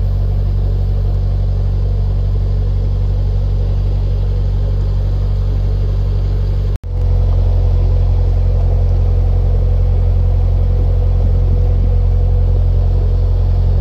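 Narrowboat's diesel engine running steadily while cruising, a low even drone. About halfway it cuts out for an instant and comes back louder, with a thin steady whine added.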